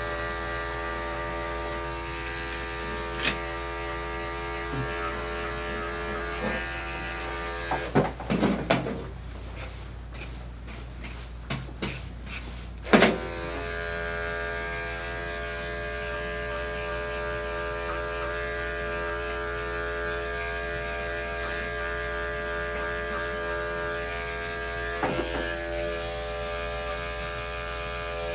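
Electric dog grooming clippers running with a steady buzzing hum as they clip a dog's coat. The hum stops about eight seconds in, a few knocks and clicks follow, and it starts again with a sharp click about five seconds later and runs on.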